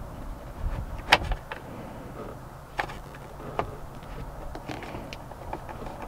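A few sharp plastic-and-metal clicks and knocks as a small screwdriver is worked into the release hole behind a Silverado steering-wheel airbag module, pushing in its spring clip to free the airbag.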